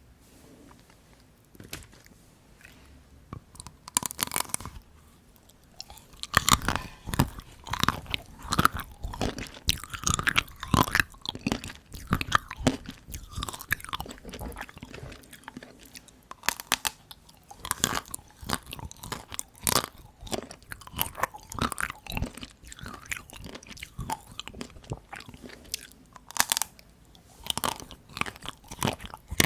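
Close-miked biting and chewing of dark-chocolate Tico ice cream bites, the chocolate coating cracking and crunching with each bite. The crunching starts about four seconds in, then comes in quick, uneven runs.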